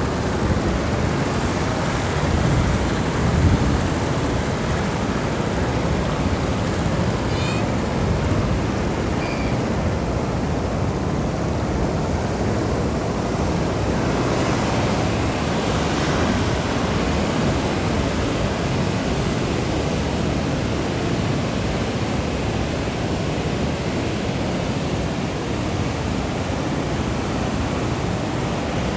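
Ocean waves breaking and washing on a shore in a steady surf roar that swells gently now and then.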